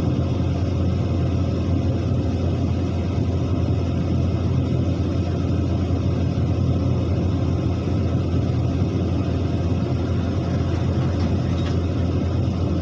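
Excavator's diesel engine running steadily, a low, even rumble.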